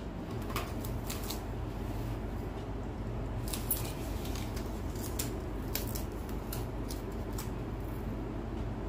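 Double-sided mounting tape being unrolled and handled: scattered short crackles and clicks, over a steady low hum.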